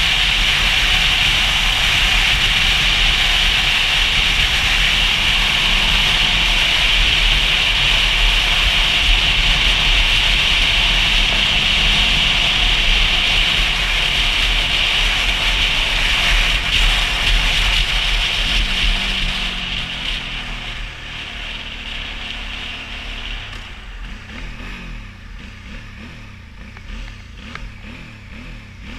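Motorcycle at highway speed: steady wind rush over the microphone with the engine running underneath. About twenty seconds in, the wind noise dies away and the engine note falls as the bike slows, leaving a quieter engine near the end.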